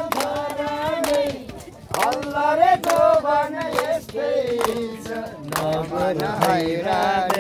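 A male folk singer singing a Nepali folk song in long, wavering held notes, with people clapping their hands.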